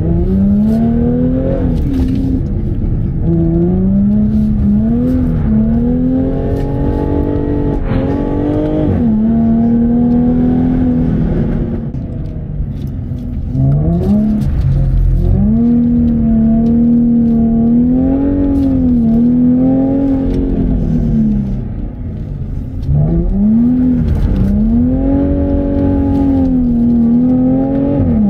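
Jaguar F-Type's supercharged 3.0-litre V6 revving hard and easing off again and again as the car is drifted through bends. Twice, about 12 and 22 seconds in, the revs fall away briefly before climbing again.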